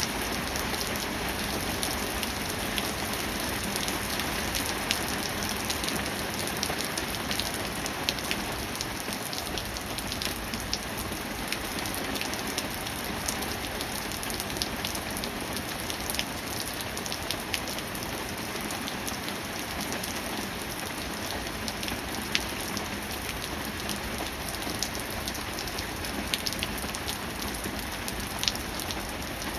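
Steady rain falling: an even hiss, with scattered sharp ticks of single drops landing close by.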